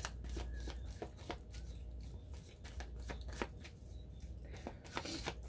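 Tarot cards being shuffled and handled: a string of irregular soft card clicks and flicks over a steady low hum.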